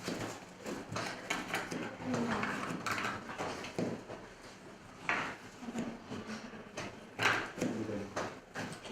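Irregular knocks and clatter of kitchen knives and utensils on cutting boards and dishes during fruit chopping, with faint voices in the background.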